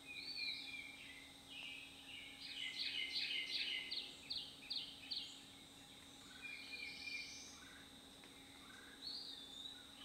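Wild songbirds singing: a few short whistled phrases, and in the middle a rapid run of about eight repeated notes lasting a couple of seconds.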